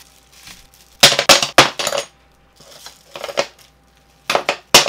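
Stainless steel forks in plastic sleeves being set down one after another on a wooden tabletop: sharp metallic clinks and taps in four quick clusters.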